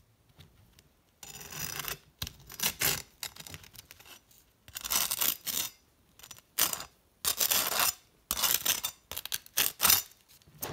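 Knife scraping across a slice of toasted sourdough bread, spreading a thin layer of mayonnaise, in a series of short, irregular strokes.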